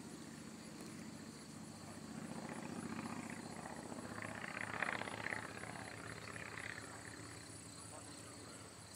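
A distant engine's low, steady hum that fades over the first few seconds, with a brief louder rustle of noise about halfway through. Faint regular high chirping of insects runs underneath.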